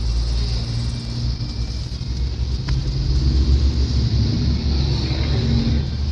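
Trucks driving close alongside on an expressway, heard from inside a moving car: a steady low engine rumble with tyre and wind noise, swelling a little as a trailer passes in the middle.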